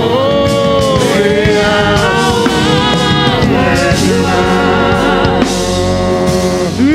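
Gospel worship song: voices singing long held notes over instrumental accompaniment.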